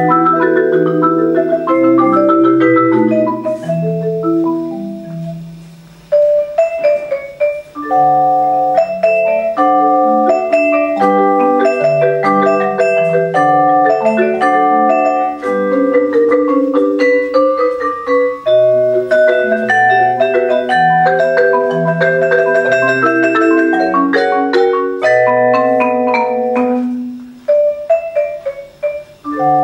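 A marimba and a vibraphone playing a waltz melody together in mallet-struck notes, some notes ringing on over the others. The music thins out briefly twice, about five seconds in and again near the end.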